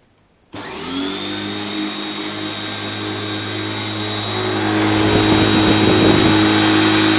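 1998 Hoover Turbopower 2 U2090 upright vacuum cleaner, a 900-watt machine, switched on about half a second in: its motor spins up with a rising whine over about a second, then runs steadily, getting louder about five seconds in.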